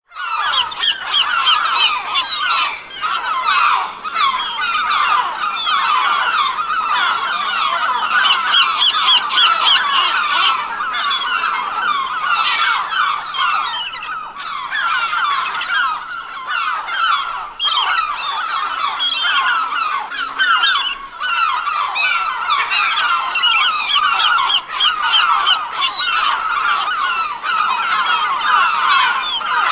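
A flock of gulls calling all at once, many short squawking calls overlapping in a constant din with no pauses.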